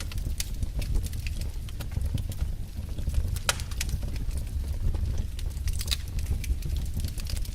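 Wood fire burning in a fireplace: irregular sharp crackles and pops over a low, steady rumble of flames, with one louder pop about three and a half seconds in.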